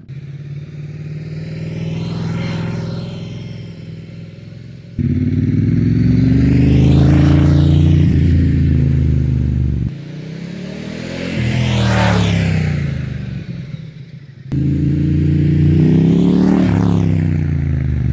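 Ducati Diavel 1260 S motorcycle with an unbaffled Termignoni exhaust, its 1262 cc L-twin revving as the bike rides past, in four short clips joined by abrupt cuts. Each pass builds to a loud peak and then fades.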